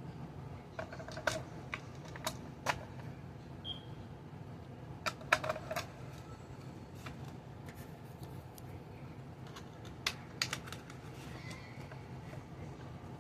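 Light plastic clicks and taps in small clusters, from batteries and the plastic battery compartment of an RC toy being handled and fitted.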